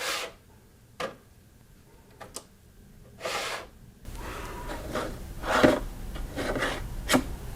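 Handling noises: a few sharp clicks and knocks spaced out over the first two seconds and a short rustle about three seconds in, then a denser run of small clicks and shuffling over a low background rumble in the second half.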